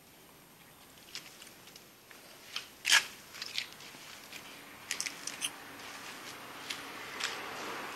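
Handling noise from a phone's microphone: scattered clicks and rubbing, with one sharp click about three seconds in, and a hiss that builds toward the end.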